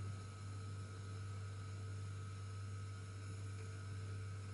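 Steady low electrical hum with a faint, even hiss behind it, unchanging throughout.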